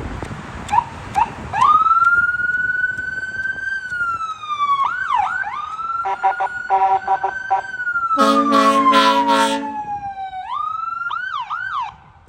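Emergency vehicle's electronic siren wailing, rising and falling slowly with quick yelps between the sweeps, and ending in a few fast chirps. Just past halfway come a series of rapid short horn toots, then a long blast of the train horns.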